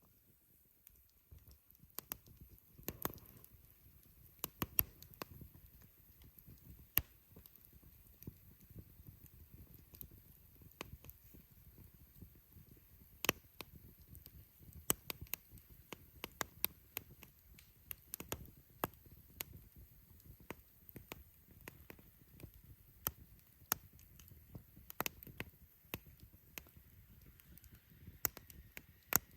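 Wood campfire crackling, with irregular sharp pops and snaps over a low, soft hiss of burning.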